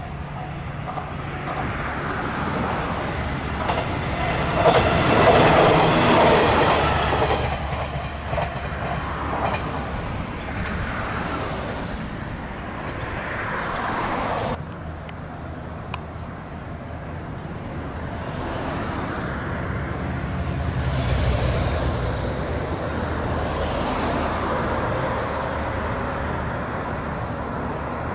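A diesel railcar train passes close by on the track. The engine and the wheels on the rails grow loudest about five seconds in, then fade as it goes away.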